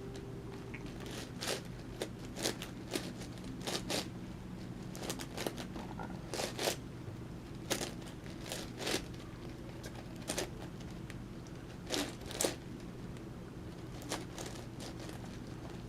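Plastic clicking and clacking of an 11x11x11 Rubik's cube as its layers are turned: irregular clicks, often in quick pairs, over a faint steady low hum.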